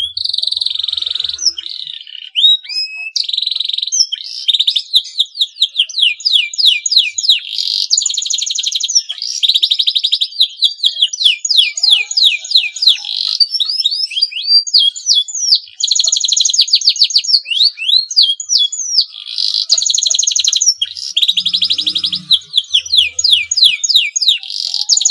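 Male domestic canary in breeding condition singing: long runs of rapid trills and rolls, broken up by quick rising and falling whistled notes, with only brief pauses.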